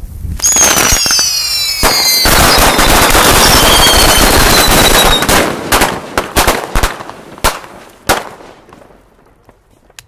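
A Heksenkring firework going off. First several whistles sound together, falling in pitch; then come about three seconds of dense, rapid crackling. The crackling tails off into scattered loud pops that end about eight seconds in.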